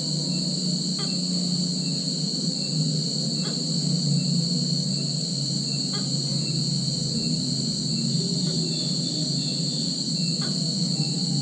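A steady, high-pitched chorus of insects trilling without a break, over a constant low hum. A faint tick comes about every two and a half seconds.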